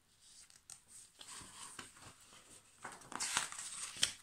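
Paper rustling and soft handling clicks as a large picture-book page is turned, loudest about three seconds in.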